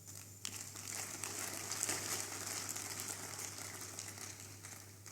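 Crowd applauding, a dense crackle of many hands clapping that swells about half a second in and fades away near the end.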